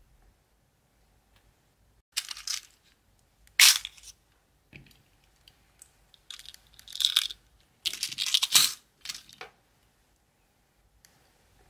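Small clear plastic compartment case of metal nail-art parts being handled: about six bursts of plastic clatter and small metal parts rattling as the case is opened and tweezers pick through the parts.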